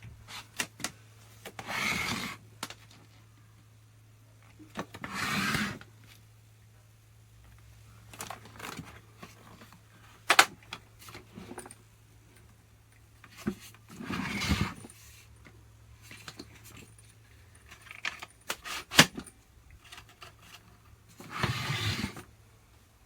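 Objects being handled: scattered clicks and rattles with four short scraping, rustling bursts about a second long each, over a steady low hum.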